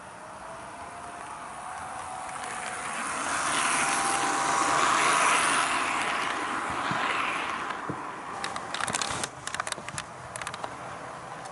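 HO gauge model diesel railcar running past close by, its motor whine and wheel rumble on the track swelling to a peak about halfway through and then fading. Near the end comes a run of sharp, irregular clicks of model wheels crossing track joints as a model freight train rolls by.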